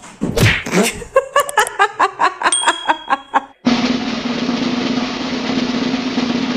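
A quick run of drum-like hits, about four or five a second, then a steady hiss with a low hum that starts just past halfway.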